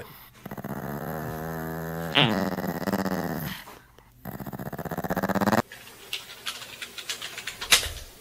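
A small dog growling while tugging on a toy: a long, wavering growl that stops about three and a half seconds in. Later comes a swelling tone, then scattered clicks and one sharp knock near the end.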